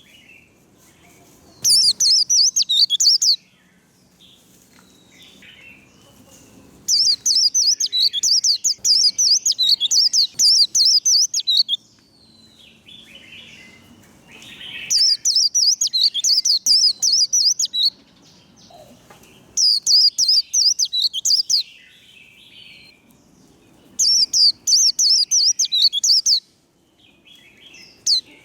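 White-eye singing its rapid, high, jumbled 'líu' twittering song in about five loud bursts of one and a half to five seconds each, with softer chips between them.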